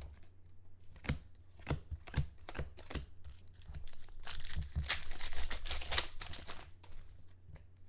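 Foil wrapper of a football trading-card pack being torn open and crinkled by hand. Scattered crackles come first, then a denser, louder stretch of crinkling a little past the middle.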